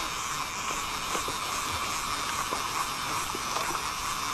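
Overhead fishing reel being cranked to wind in line, giving faint irregular clicks over a steady hiss.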